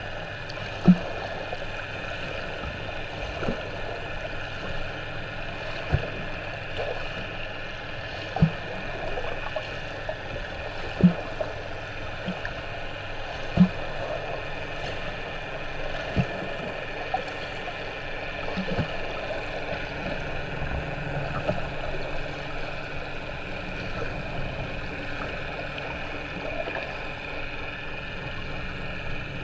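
Front crawl heard underwater through a camera's waterproof housing: a steady muffled wash of water with a dull low thump about every two and a half seconds as the strokes go by.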